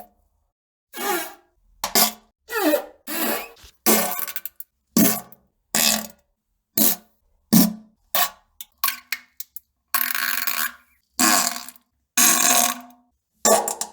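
A string of about fifteen separate fart sounds, one after another with dead silence between them, some short blasts and some drawn out to about a second near the end.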